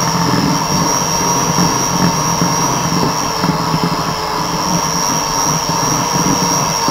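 Electric hand mixer running steadily with a high whine, its beaters churning flour into a crumbly dough of creamed fat and sugar.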